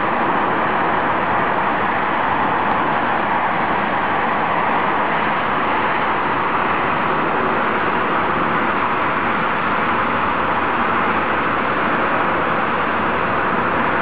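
Steady, unbroken traffic noise from a busy multi-lane road.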